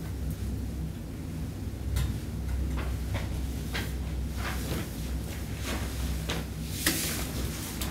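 Light knocks and clicks of small objects handled on an altar, about a dozen at irregular intervals, the sharpest about seven seconds in, over a low steady hum.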